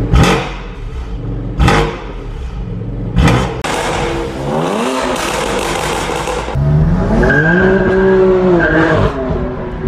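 BMW M2 Competition's S55 twin-turbo straight-six, with its secondary catalytic converters deleted, being revved: three sharp exhaust pops during falling revs in the first few seconds, then a long rising rev held high until near the end.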